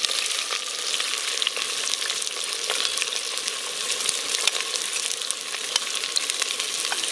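Fresh chopped onions sizzling in hot oil in a cast iron potjie pot: a steady frying hiss with many small crackling pops.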